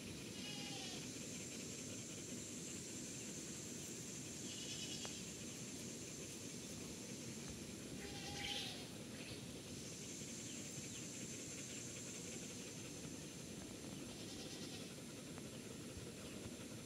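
Outdoor ambience: a steady low background noise with a thin, high, steady insect-like buzz, and a few short chirps near the start, about five seconds in, at eight and a half seconds, and near the end.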